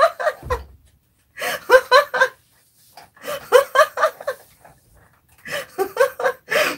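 A woman laughing hard in four separate bouts, each a quick run of ha-ha pulses.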